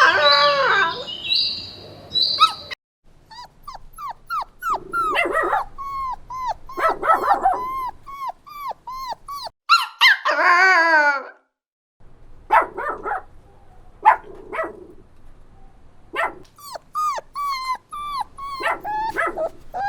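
A puppy yipping and whimpering in a run of short, high calls, with a longer wavering cry about ten seconds in.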